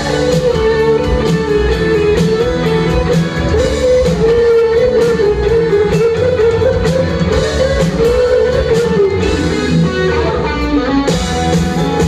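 Rock band playing live with electric guitars and a drum kit, loud and continuous.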